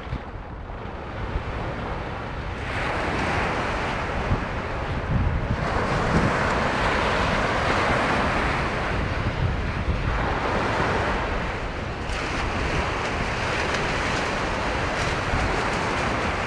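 Sea surf breaking and washing up the beach, swelling about three times, with wind buffeting the microphone as a steady low rumble.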